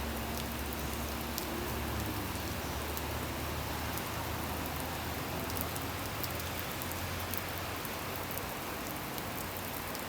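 Steady downpour of storm rain, with scattered sharp ticks of drops striking close by.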